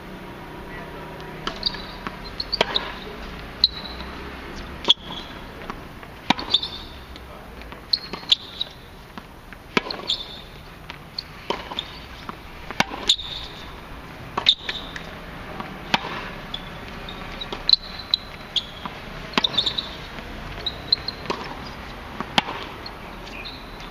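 Tennis rally on a hard court: a string of sharp pops from racket strikes and ball bounces, about one every second or so. The near player's forehands are loudest and the far player's shots fainter.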